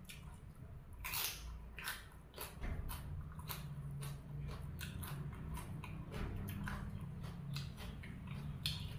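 A person chewing and biting into crisp raw vegetables: many irregular crunches and clicks from the mouth.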